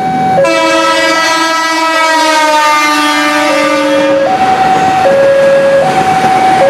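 Indonesian train horns: a horn chord sounds from about half a second in to about four seconds, sagging slightly in pitch. Throughout, a tone alternates between two notes about once a second over the running noise of a train.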